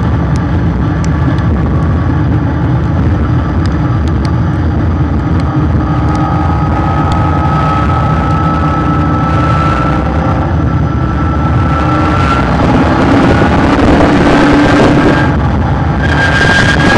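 Car running at speed on a race track, heard through a bumper-mounted camera: a steady roar of wind and tyre noise over the engine, with a whine that slowly rises in pitch through the middle.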